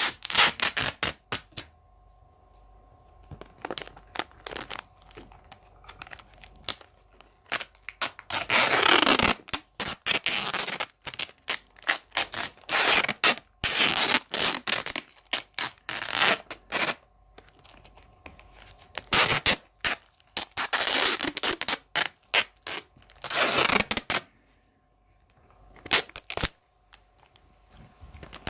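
Adhesive tape being pulled off the roll in long ripping strips and torn, with scratching and rubbing as it is wrapped around and pressed onto a phone. The rips come irregularly, the longest lasting a second or two, with short quiet pauses between.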